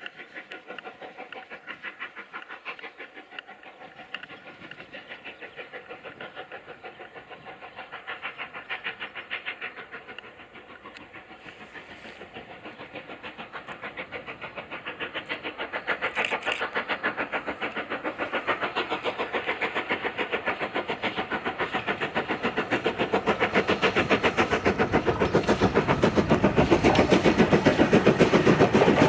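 LNER B1 4-6-0 No 61264, a two-cylinder steam locomotive, working towards the listener with a fast, even beat of exhaust chuffs. The beat grows steadily louder as it approaches, and is loudest near the end as the engine draws close.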